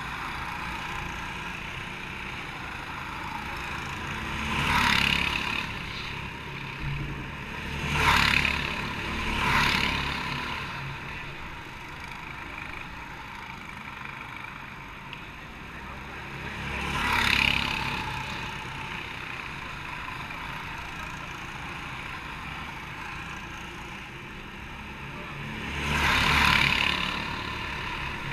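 Go-kart engines running steadily at race pace. Karts swell up and fade away about five times as they pass.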